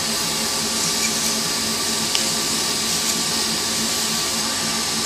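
Wood lathe motor running steadily with 400-grit sandpaper hissing against a spinning pen blank: a constant hum under an even, high hiss.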